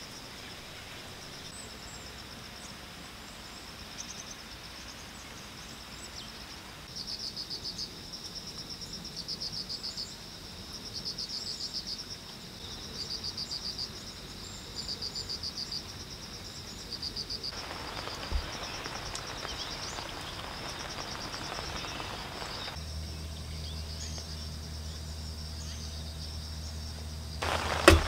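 An insect chorus shrills steadily, with one insect trilling loudly in pulses of about a second, roughly one every two seconds, through the middle of the clip. A soft hiss comes in later and a sharp click sounds right at the end.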